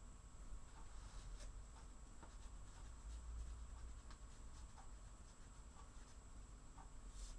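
Near silence: quiet room tone with a low hum and faint soft ticks recurring about every three-quarters of a second.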